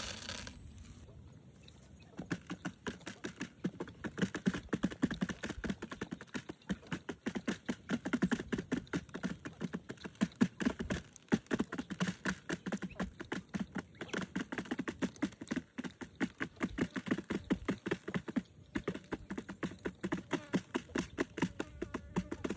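Rapid, irregular tapping and clicking, several taps a second, starting about two seconds in.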